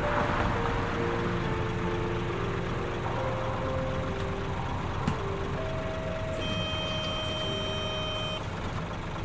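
Claas Lexion combine harvester running steadily while harvesting wheat, a constant engine and machinery rumble. Background music of held notes is laid over it, brightening briefly in the second half.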